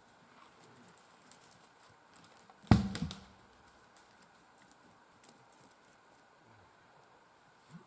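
One heavy thud about three seconds in, against faint quiet with scattered light ticks.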